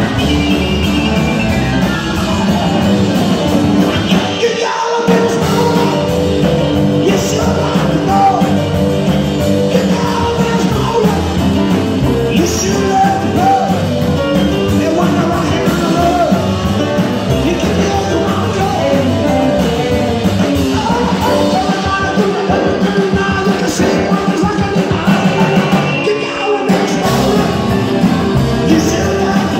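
Rock and roll band playing: upright bass, electric and acoustic guitars, keyboard and drums, with a male singer. The bass drops out briefly about five seconds in and again near the end.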